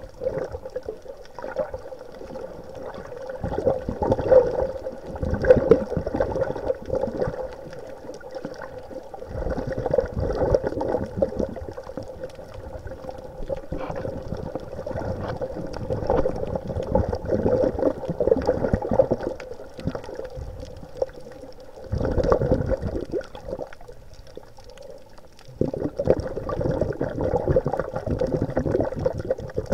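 Water rushing and bubbling around an underwater camera on a reef dive, coming in surges every few seconds, over a faint steady hum.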